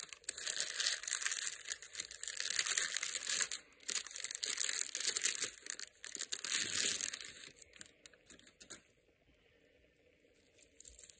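Clear polythene wrapping crinkling and rustling as it is pulled off a watch by gloved hands, in several bursts, dying away after about eight seconds.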